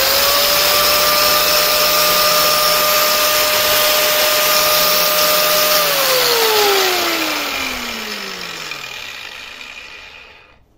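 Stanley SG7100 750 W angle grinder running free at full speed, a loud high whine over a hiss. It is switched off about six seconds in and spins down, the whine falling steadily until the disc stops near the end.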